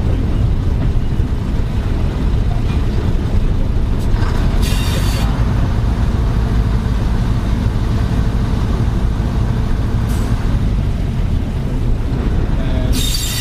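Heritage diesel multiple unit on the move, a steady low rumble of its engine and running gear heard from inside the carriage. A short high hiss comes about four and a half seconds in, and another starts just before the end.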